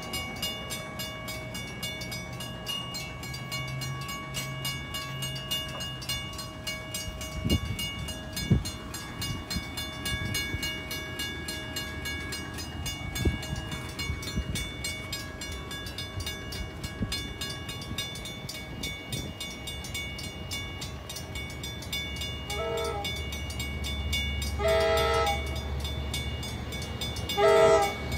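Grade-crossing warning bell ringing steadily while an LIRR DE30AC diesel locomotive approaches. Its horn sounds three blasts in the last six seconds, the second and third louder, as the engine's low rumble builds. Two sharp knocks come about seven and eight seconds in.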